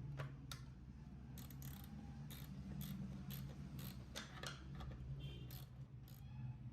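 A run of irregular light mechanical clicks and taps, about a dozen in all, over a steady low hum.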